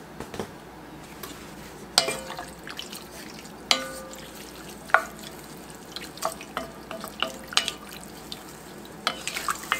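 A wooden spoon stirring green beans in their liquid in an enameled pot, with sharp knocks against the pot about two, nearly four and five seconds in that ring briefly, then lighter irregular taps and clicks toward the end.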